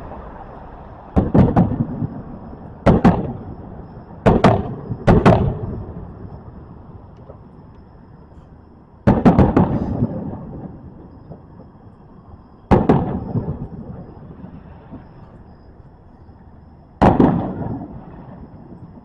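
Fireworks shells bursting overhead: about eight sharp booms at uneven gaps, the first two close together, each trailing off in a rolling echo.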